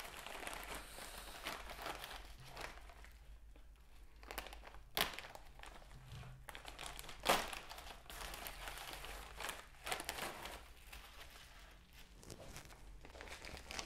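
Plastic mailer bag and bubble wrap crinkling and rustling as a bubble-wrapped package is pulled out of the opened bag, with a couple of sharper crackles about five and seven seconds in.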